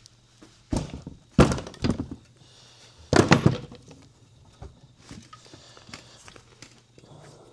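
Several heavy knocks and clunks of metal tools and suspension parts being handled and set down, in bursts during the first three and a half seconds, then only a faint low hum.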